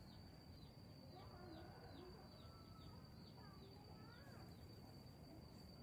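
Faint outdoor ambience: a steady high insect whine that dips in a falling chirp about twice a second, with faint bird calls about a second to four seconds in.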